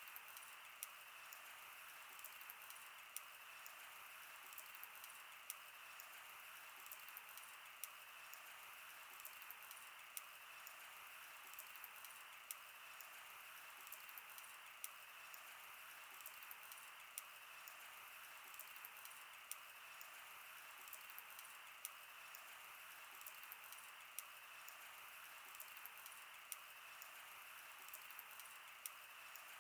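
Wood fire crackling: frequent sharp pops and ticks over a steady, faint hiss of burning.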